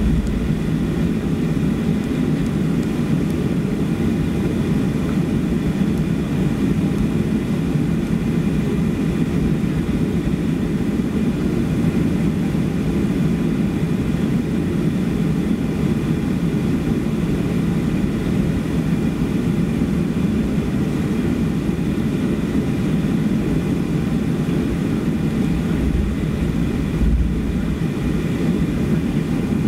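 Cabin noise of a Boeing 737-400 taxiing, its CFM56-3C1 turbofan engines running at idle: a steady low rumble with a faint steady whine on top. A brief low thump comes near the end.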